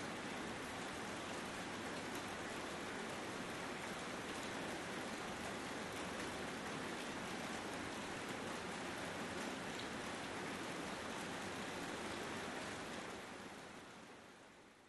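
Steady, even rain-like hiss with no distinct tones, fading out over the last couple of seconds.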